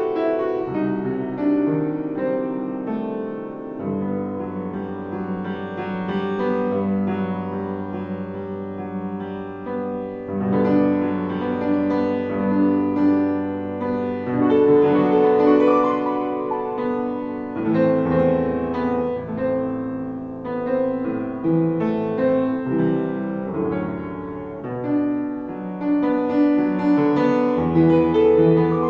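Upright piano playing a melody over chords, with long-held bass notes underneath.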